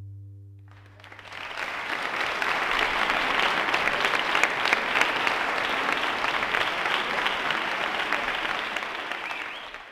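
The duo's last low note dies away over the first two seconds, and audience applause starts about a second in, building to a steady clapping that tapers off at the very end.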